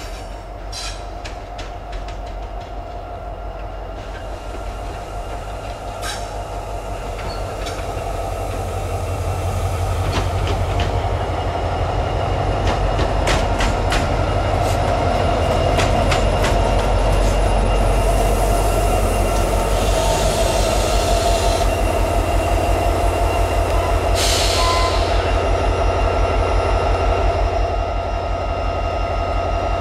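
Diesel freight locomotive approaching and passing close, its engine rumble growing louder as it nears and then holding steady. Sharp clicks of wheels over rail joints come in the first half, and there are two brief spells of high hissing around the middle and about three-quarters through.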